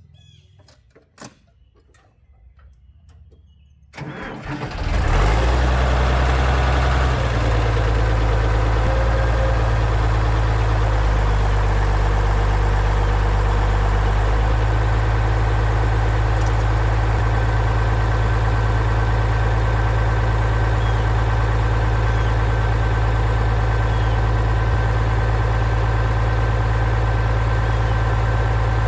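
Farmall 856 tractor engine cranking and catching about four seconds in, then settling into a steady idle. A few light clicks come before the start.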